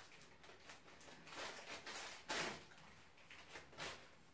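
Thin plastic packaging bag crinkling and rustling in the hands as a box is worked out of it, faint, in a few short bursts; the loudest comes about two and a half seconds in.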